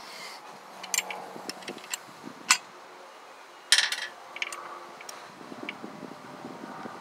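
Hardware being handled at a steel slider engine mount: a handful of short, sharp metallic clicks and clinks, scattered unevenly, the loudest a little past halfway.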